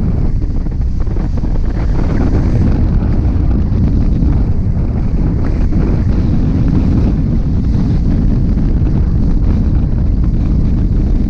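Loud, steady wind rushing over the microphone of a hang glider in flight: the airflow of gliding speed buffeting the mic in a low, even rumble.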